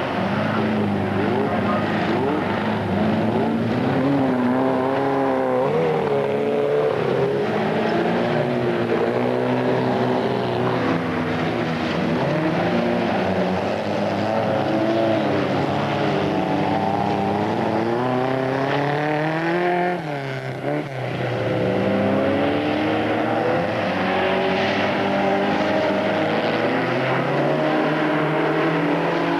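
Several folkrace cars racing on a dirt track, their engines revving hard, pitch swinging up and down as they accelerate, shift and lift through the corners. The sound drops briefly about two-thirds of the way through.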